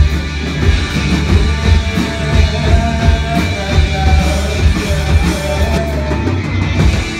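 Live rock band playing: electric guitars over a drum kit, with a heavy, steady low end.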